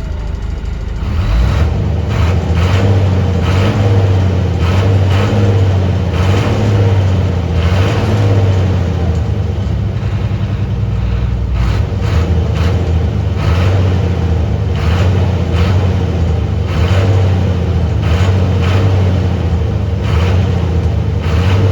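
Car engine running, its pitch rising and falling as it accelerates and eases off, with short knocks and jolts scattered throughout.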